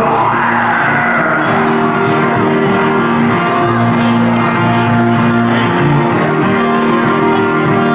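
Two acoustic guitars strumming chords together in an instrumental passage of a live song.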